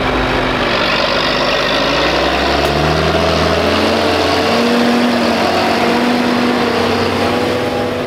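A John Deere tractor's engine running loudly, its pitch rising and falling a little as the revs change.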